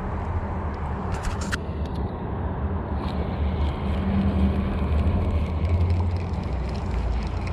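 A spinning reel being handled, with light clicks and rattles from its bail arm and line, over a steady low rumble.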